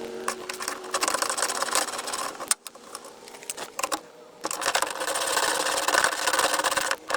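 Power tool running in two bursts with a rapid mechanical chatter, undoing the fastener on the window track rail inside a car door. The second burst starts about four seconds in.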